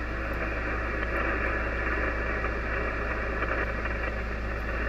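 Steady static hiss from an Icom IC-756PRO HF receiver tuned to a 40-metre lower-sideband net between transmissions, cut off above about 3 kHz by the receiver's filter, with a steady low hum underneath.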